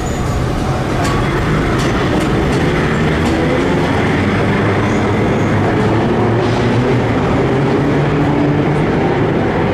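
Vintage 1930s R1-9 subway train running: a steady rumble of steel wheels on rail with a low hum underneath and a few sharp clicks over rail joints about a second or two in.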